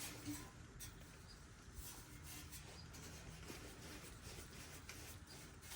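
Faint rubbing and a few light clicks from parts being handled in a blown two-stroke dirt-bike engine while it is searched for broken piston fragments.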